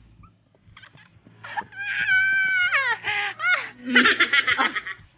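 Playful laughter and squealing from young men: a long high-pitched squeal about two seconds in that falls in pitch at its end, then a quick burst of laughter near four seconds.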